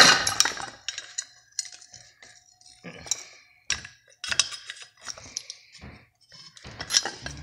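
Metal tool clinking and scraping against a Bosch alternator's housing as it is pried apart: scattered sharp clicks and taps with short quiet gaps, loudest at the start.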